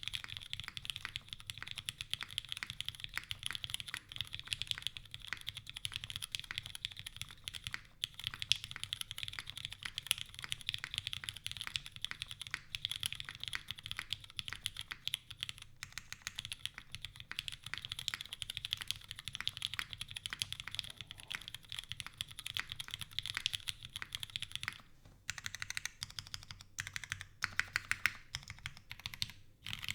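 Continuous fast typing on a custom mechanical keyboard with lubed and filmed Cherry MX Black linear switches in an aluminium plate and GMK keycaps: a dense run of keystroke clacks, with a few short pauses near the end.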